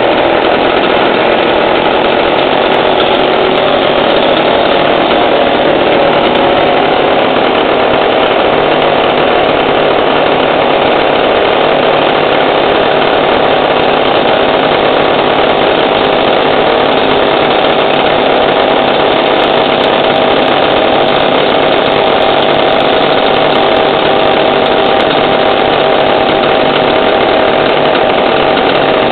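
Several chainsaw engines running steadily at an even speed, with no revving.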